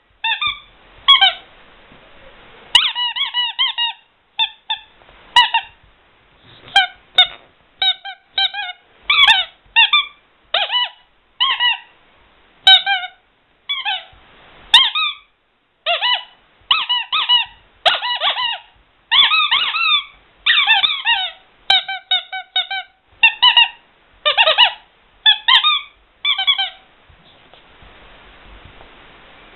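Vintage Ledraplastic rubber squeaky toys squeezed again and again, each squeeze giving a short high squeak that bends in pitch. The squeaks come in quick runs of two to four, with short pauses between, then a brief pause near the end.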